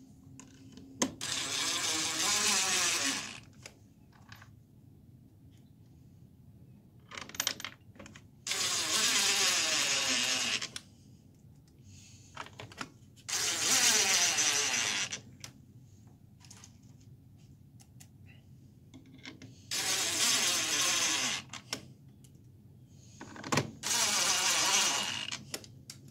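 Cordless power driver running screws into a wooden window frame to fasten a casement window crank operator: five separate bursts of about two seconds each, one per screw, with small clicks between them.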